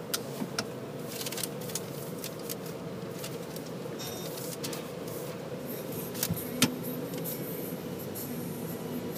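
Steady hum of automatic car wash machinery heard from inside a car, with scattered light clicks and taps, the sharpest about six and a half seconds in.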